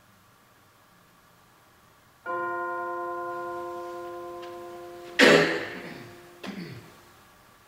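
A bell struck once, ringing with a clear tone that slowly fades. About three seconds later a loud, noisy clash breaks in, and a second, shorter one about a second after that stops the ringing.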